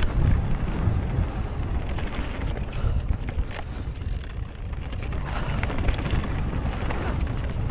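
Wind rushing over the microphone and tyre rumble from a mountain bike descending a dirt trail at speed, with scattered clicks and knocks as the bike runs over the ground.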